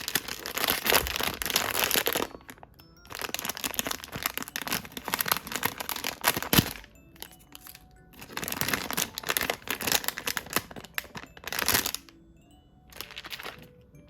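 Blind-box packaging crinkling and rustling as it is unwrapped, in several long bursts with short pauses between.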